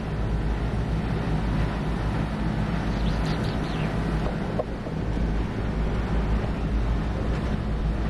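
Carrier rooftop HVAC unit running: a steady low hum from its compressor and condenser fan.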